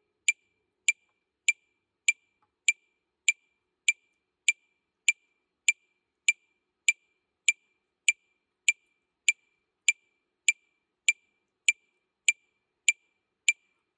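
Metronome clicking steadily, about 100 beats a minute, with nothing else sounding between the clicks.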